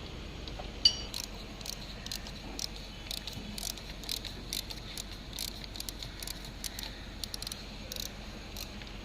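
Light metallic clicks and clinks from small tools and metal parts being handled, scattered irregularly, with one sharper click about a second in.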